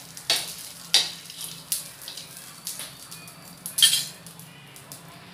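Flat metal spatula scraping and clacking on a tawa as peanuts are stirred in a little oil, the nuts rattling across the pan. There are a handful of separate strokes about a second apart, the loudest near four seconds in, after which the stirring stops.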